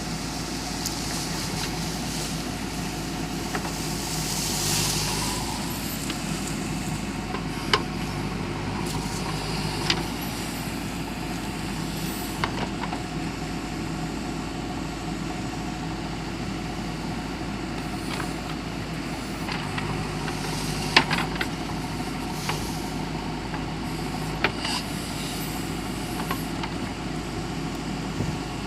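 JCB 3DX backhoe loader's diesel engine running steadily under work, with a few sharp knocks spaced through it and a brief hiss about five seconds in.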